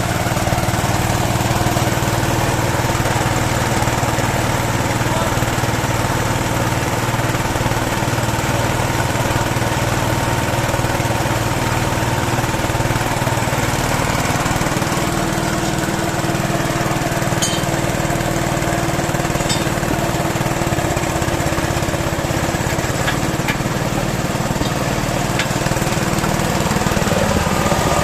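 Small water-pump engine running steadily, driving a home-built well-drilling rig through a Suzuki Carry gearbox and differential. There are a few light clicks in the second half.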